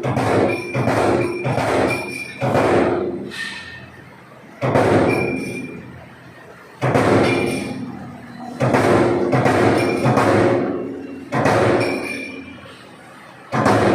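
CNC turret punch press striking sheet metal: sharp repeated punch hits, about two a second at first, then single strikes a second or two apart, each followed by a short ringing decay.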